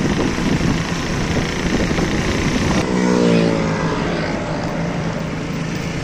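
Street traffic heard from a moving vehicle: steady engine and road noise with a constant low hum. About three seconds in, a passing engine's drone rises over it briefly and falls slightly in pitch.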